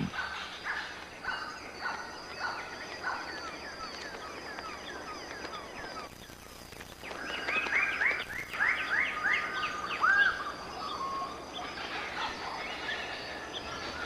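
Lesser birds of paradise calling: series of repeated, downward-slurred notes, in two bouts, the second denser and louder one starting about seven and a half seconds in. A faint steady high-pitched background tone runs underneath.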